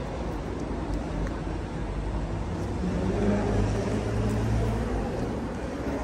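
Car driving, its engine running with a steady low rumble; the engine note grows stronger about halfway through and eases again near the end.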